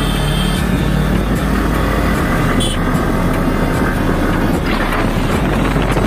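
Motor scooter engine running on the move, with steady wind noise rushing over the microphone.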